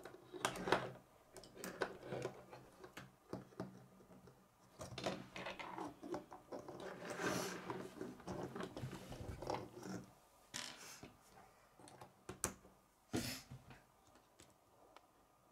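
Plastic K'nex rods and connectors clicking and rattling as they are snapped together and handled on a wooden table, in irregular taps with a short stretch of rustling near the middle.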